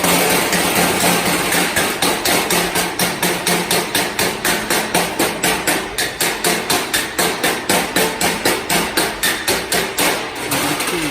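Stick welding work on a steel plate: a loud, harsh metallic noise pulsing at an even rate of about four to five times a second, easing off near the end.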